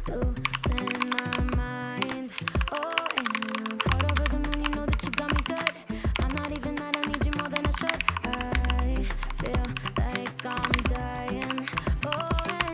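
Fast typing on a mechanical keyboard fitted with Faker Holy Panda tactile (non-clicky) switches, a dense run of keystroke clacks, over background pop music.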